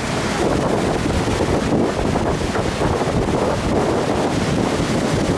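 Ocean surf breaking against rocks and rushing over the rocky shore, with wind buffeting the microphone: a steady, unbroken rush.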